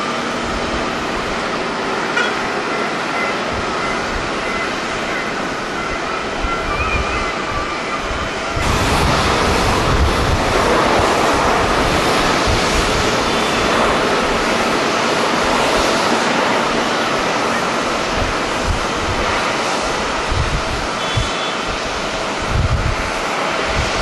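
Strong wind buffeting the microphone over the steady rush of jet airliner engines. The sound steps up louder about eight and a half seconds in.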